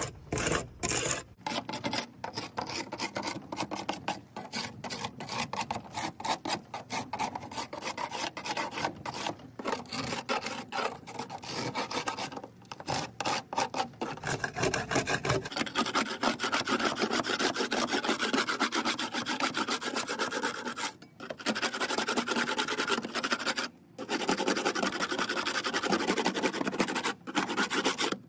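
Hand scraping of flaking old paint off a weathered wooden garage door: fast, repeated rasping strokes, more continuous in the second half with a few brief pauses.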